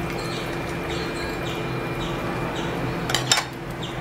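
Dissolved custard mixture poured from a bowl into an enamel pot of hot milk, over a steady hiss. About three seconds in come a few quick clinks of the bowl against the pot.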